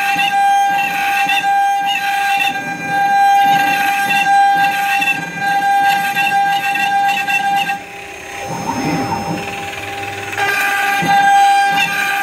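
CNC router spindle running with a steady high whine while its bit cuts into a wooden panel, the cutting noise wavering above the whine. For about two seconds past the middle the cutting noise drops away and only the whine remains, then the cutting resumes.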